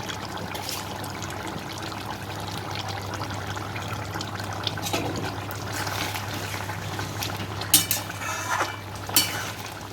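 Thick potol chingri curry bubbling and simmering in a kadai, its water nearly cooked off, over a steady low hum. Two or three sharp clicks come in the last few seconds.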